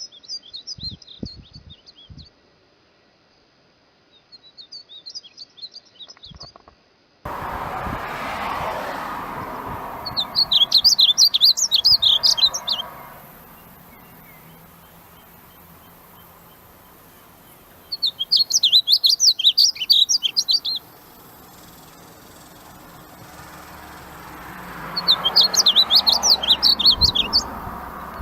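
A songbird singing in repeated bouts of rapid, high chirping notes, each bout about two to three seconds long, five times with pauses between. A steady hiss sets in about seven seconds in, and the later bouts are louder.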